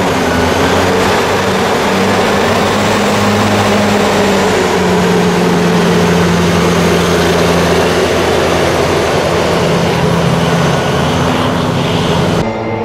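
Khius-project coast guard hovercraft running across ice: a loud, steady roar from its ducted air propeller and engine, with a low hum under it. The roar cuts off just before the end.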